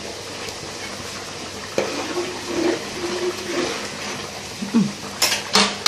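A large aluminium pot of rice at a rolling boil, a steady bubbling hiss, while a ladle stirs through it. A few sharp knocks near the end.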